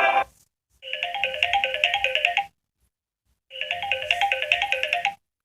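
Samsung Galaxy S8 phone ringtone: a short run of quick, bright repeated notes, played twice with a silent pause between the two rings.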